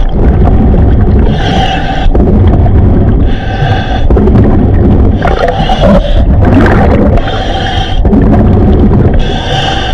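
Scuba diver breathing fast through a regulator, a hissing inhale about every two seconds, over a steady low rumble of strong river current against the camera.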